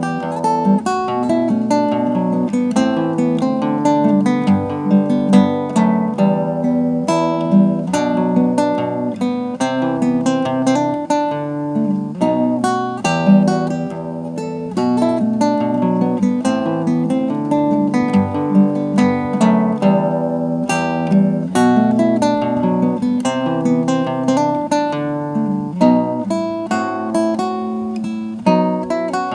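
Acoustic guitar playing a song, with picked notes and strummed chords ringing on without a pause.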